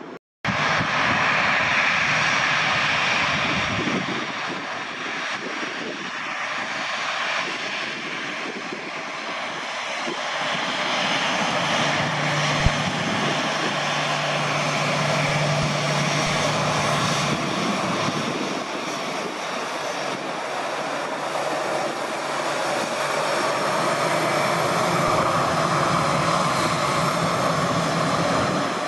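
Jet airliner engines running, a loud steady noise with a whine that swells and eases. The sound starts abruptly after a very short dropout, and there is one sharp click about halfway through.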